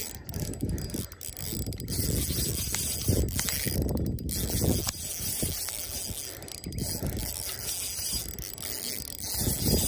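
Spinning reel being cranked steadily as a hooked fish is reeled in, the reel's gears whirring with scattered clicks.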